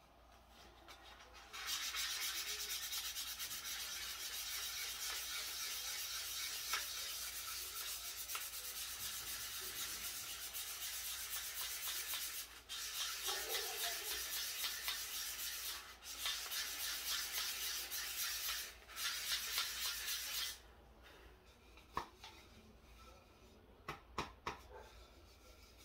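Sandpaper rubbed by hand over a small wooden dish in quick, short strokes, with a few brief pauses, stopping about 20 seconds in. A few light knocks follow near the end.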